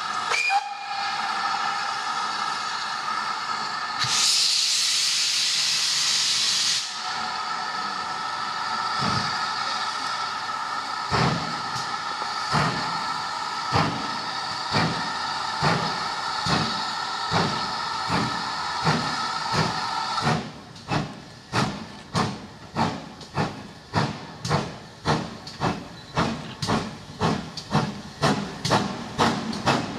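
GWR Manor class 4-6-0 steam locomotive starting its train: a short whistle near the start, then a loud burst of steam hiss for about three seconds. Its exhaust chuffs follow, slow and soft at first, then sharper from about two-thirds through and quickening to about two and a half a second as it gathers speed.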